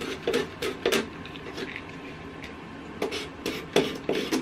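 A hand tool scraping the edge of a painted wooden frame in short, scratchy strokes, chipping off paint for a distressed, chippy finish. A few strokes come at the start, then a pause, then a run of several more near the end.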